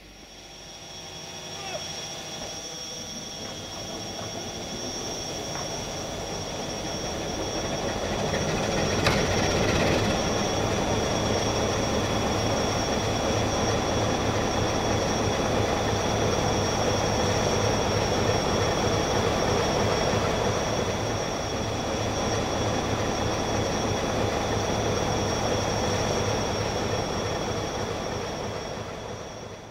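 Diesel-electric locomotive's Sulzer 12LDA28 engine running. The sound builds over the first eight seconds and then holds steady, with a steady high-pitched whine over it and a single click about nine seconds in.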